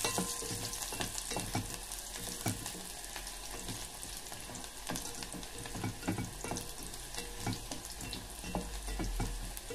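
Minced garlic sizzling in hot oil in a pot, being sautéed toward golden brown. A wooden spatula stirs it, with frequent short scrapes and taps against the pot.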